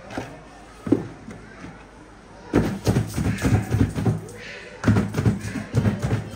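A hollow plastic knock about a second in, as a plastic basin is set down. From about two and a half seconds on, a person's voice talks over the rest and is the loudest sound.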